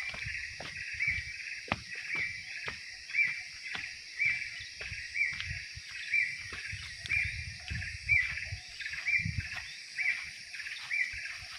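An outdoor animal chorus: a short chirping call repeating steadily about twice a second, over a steady high hiss, with irregular low thumps and rumbles.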